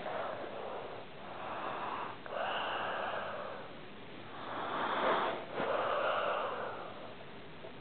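A sleeping pet snoring: four noisy breaths, each about a second long, in a slow steady rhythm.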